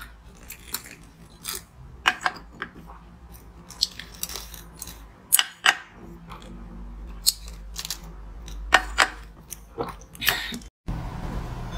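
Chewing and crunching frozen flavoured ice, in irregular short, sharp crunches and clicks. The sound cuts out briefly near the end.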